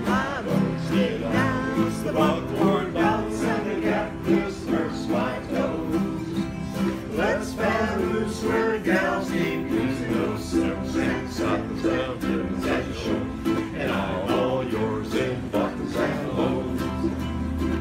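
Several ukuleles strummed together in a steady rhythm, playing a song as a group, with voices singing along.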